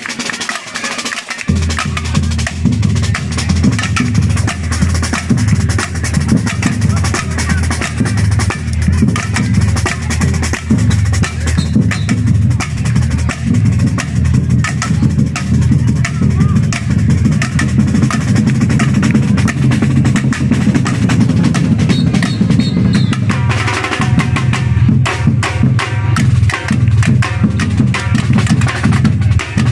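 Batucada drum group playing a driving rhythm: deep bass drums under rattling snares and sharp wood-block-like clicks. A little over a second in the full band comes in, and about 23 seconds in the pattern changes, the bass dropping out briefly before the groove picks up again with sharper strokes on top.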